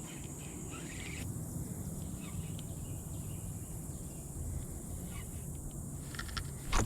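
Outdoor riverside ambience: a steady high buzz of insects over a low rumble, with a few faint bird chirps. A single sudden loud thump comes near the end.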